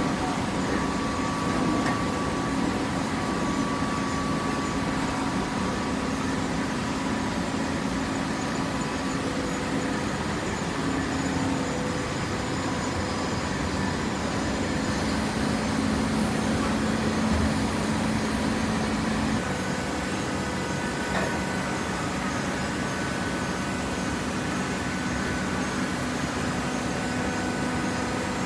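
Hydraulic baler running: a steady machine hum from its motor and hydraulic pump, with a humming tone that shifts slightly in pitch partway through.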